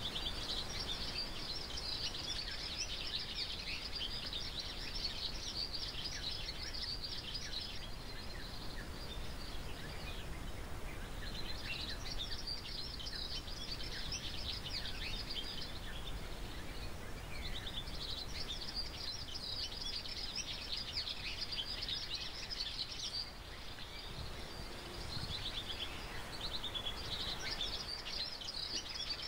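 Outdoor ambience of birds chirping densely in bouts of several seconds with short pauses between, over a steady low background noise.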